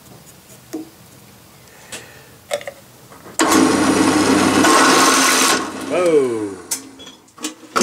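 Drilling machine starts about three and a half seconds in and runs for about two seconds with a twist drill cutting into a metal plate clamped in a vise, then is switched off and winds down with a falling whine. A few light clicks come before it.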